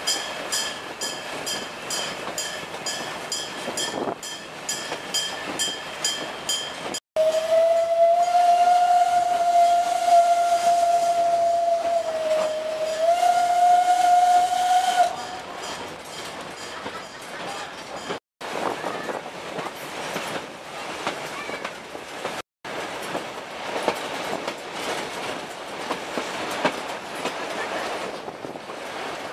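Steam train running with evenly repeating beats, then the steam locomotive's whistle blowing one long call for about eight seconds, dipping briefly in pitch near its end. Afterwards the noise of the train running continues, broken by abrupt cuts.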